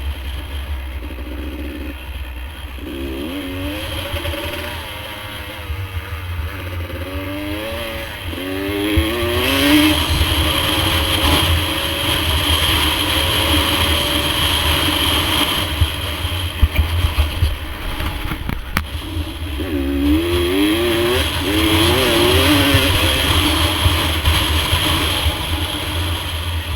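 Dirt bike engine running along a trail, revving up and easing off in repeated climbs, with louder rushing noise from about nine seconds in.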